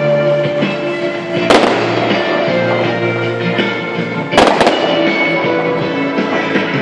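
Fireworks going off: a sharp bang about one and a half seconds in and a double bang about four and a half seconds in, over music playing throughout.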